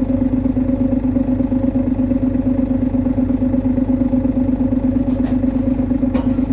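Hino Blue Ribbon HU2ML bus engine running at steady revs with a strong, unchanging drone tone over a low rumble, with a few faint clicks near the end. The drone is the unusual noise of this low-floor prototype, which the uploader puts down to its rearranged engine layout.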